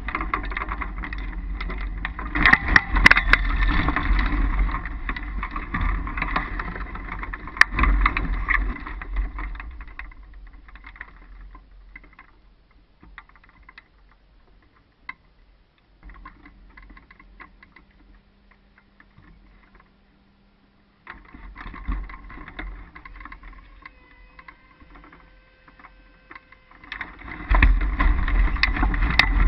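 Wind rushing and buffeting over the microphone of a camera mounted on a hang glider's wing in flight, dying away to near quiet as the glider lands, then rising sharply again near the end as the pilot runs off the launch mat to take off.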